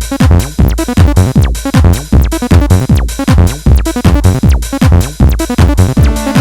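Acid techno played live on hardware synths: a steady drum-machine beat under a TD-3 acid bassline. A held synth chord drops out right at the start and comes back in right at the end.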